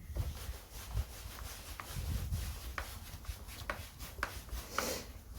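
Screws being turned in by hand with a tool while a Stihl MS 240 chainsaw's handle is refitted: scraping and rubbing with short sharp clicks at uneven spacing, roughly one every half to one second.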